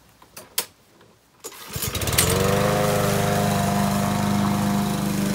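Yard Machines walk-behind mower's small engine starting. A few clicks come first, then it catches about two seconds in and runs steadily, with the newly repaired safety bail bar held down.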